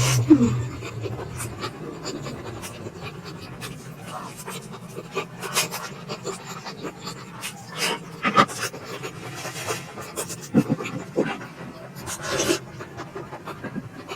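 Close-miked eating sounds of a person chewing momos: wet mouth clicks, lip-smacking and breaths, coming irregularly.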